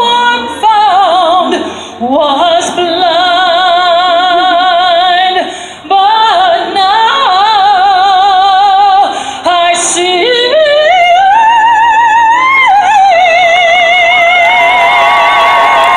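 A woman singing solo through a PA in an operatic style, holding long notes with wide vibrato and sliding between them. Near the end the crowd starts to cheer over the last note.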